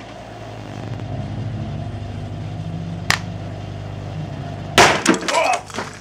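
Microwave oven transformer and magnetron running with a steady electrical hum, then a sharp click about 3 s in. About 5 s in, a sudden bang with crackling as a cell phone's battery bursts under the microwave radiation.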